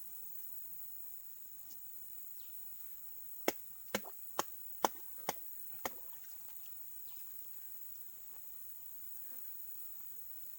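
Steady high-pitched insect drone, with six sharp knocks in quick succession, about two a second, around the middle.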